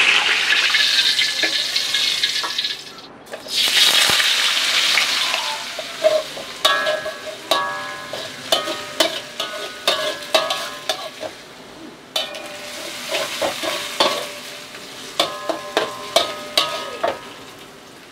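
Food sizzling loudly in hot oil in a wok, with a fresh burst of sizzling about four seconds in. From about six seconds on, a metal spatula stirs and scrapes against the wok in sharp clinks that ring briefly, over a quieter sizzle.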